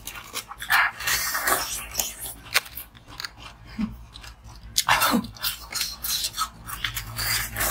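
Close-up biting and chewing of a frozen ice treat: a run of crisp, irregular crunches.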